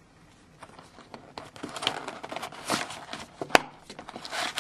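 Cardboard trading-card hobby box being opened by hand: irregular rustling and scraping of the card stock and lid, with scattered small clicks and one sharp click about three and a half seconds in.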